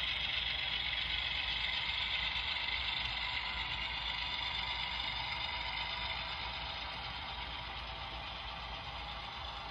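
Model coal train of loaded hopper cars rolling past on the layout track, a steady rolling rattle of wheels on rail that eases slightly after about six seconds as the train moves on.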